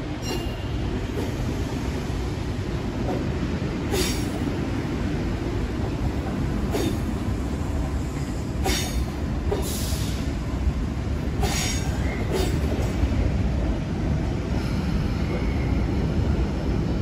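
Double-deck electric suburban train rolling slowly past, a steady rumble broken by sharp clacks at uneven intervals, about every one to two seconds, as its wheels cross track joints and points.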